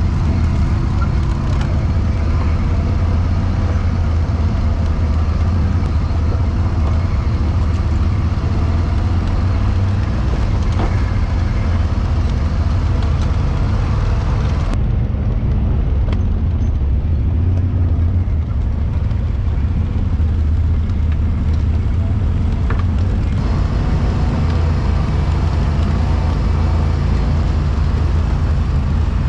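Can-Am Renegade 1000 ATV's V-twin engine running steadily while riding along a dirt trail, heard from on board the quad. The sound turns duller for several seconds around the middle.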